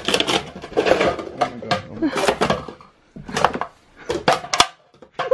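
Red plastic party cups being pulled off a door and knocking against each other, an irregular run of short hollow plastic clacks and taps.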